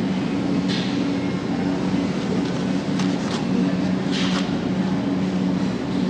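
Steady low mechanical hum of supermarket refrigeration and ventilation, with three brief rustles: about a second in, around three seconds, and just after four seconds.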